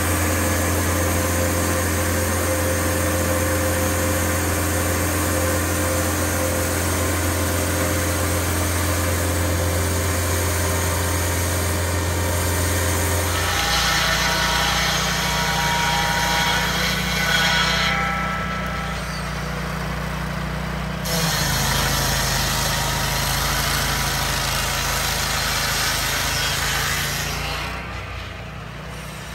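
A Baker Blue Streak portable band sawmill's engine runs steadily. About halfway through, a chainsaw on a chainsaw mill takes over, running at high revs as it rips a slab lengthwise off a log. Its pitch shifts lower a little later, and it drops away near the end.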